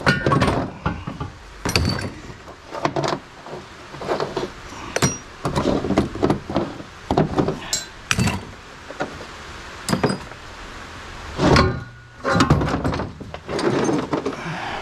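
Pieces of scrap metal and a long pipe being handled in a ute tray: irregular knocks and clinks, with a louder run of knocks about three quarters of the way through.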